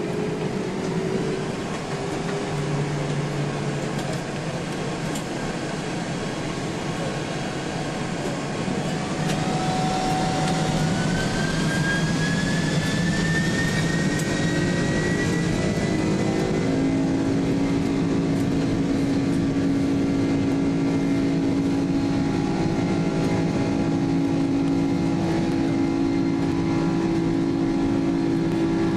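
Airbus A300-600 jet engines heard from inside the cabin, spooling up with a rising whine. The sound grows louder about nine seconds in and then holds steady at high power, as for the takeoff roll.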